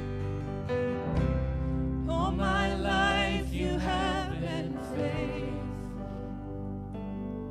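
Worship song: sustained instrumental chords under singing, with a voice holding wavering notes from about two seconds in, fading after about five seconds.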